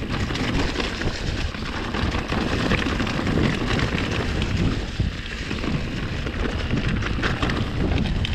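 Mountain bike descending a rough dirt singletrack: steady rushing tyre and wind noise, with frequent small clatters and knocks from the bike over the ground.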